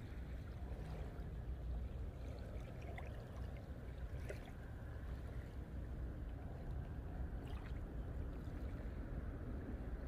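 Calm seaside ambience: a steady low rumble with a few faint, short ticks of small water sounds.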